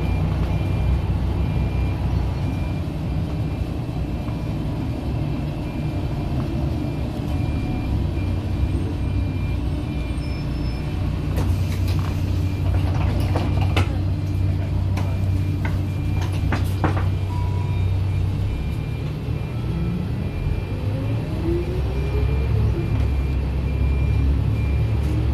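Old Volvo city bus heard from inside while driving: a steady low engine and road rumble, with a cluster of clicks and knocks from the body and fittings in the middle. Near the end the engine pitch rises a few times as the bus picks up speed.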